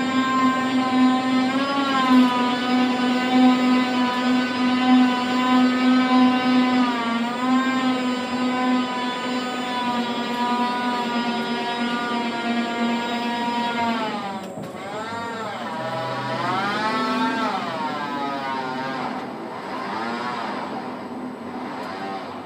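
Tower crane's electric drive whining at a steady pitch as the crane slews, with a few brief dips. About two-thirds of the way through the pitch slides down, then rises and falls in waves near the end.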